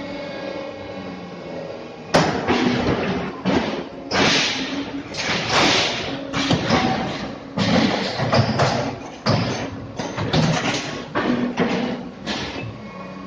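Neptune 200-ton hydraulic fly ash brick press running. A steady hum, then from about two seconds in a run of loud, irregular thuds and clanks as the press works.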